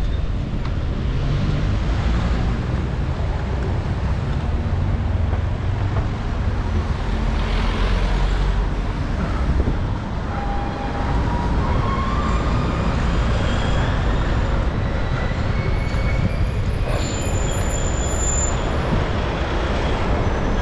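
City road traffic, with motor vehicles passing over a steady low rumble. About halfway through, faint high tones come in that climb in pitch.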